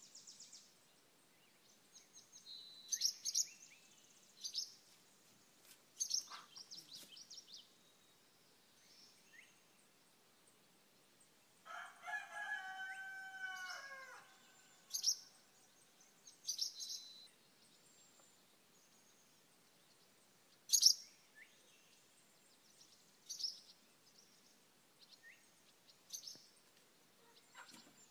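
Songbirds giving short, high chirps at scattered intervals, and a rooster crowing once about halfway through, its call falling in pitch at the end.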